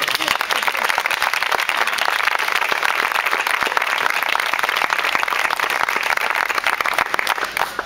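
Audience applauding: dense, steady clapping that stops sharply near the end.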